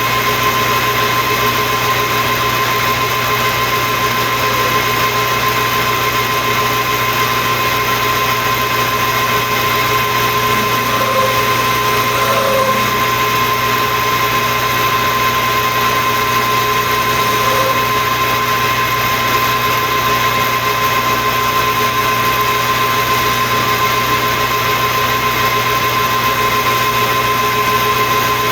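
Metal lathe running steadily, turning down a stump grinder's cutting-disc shaft to take its diameter down, with a steady high whine over an even machine hum.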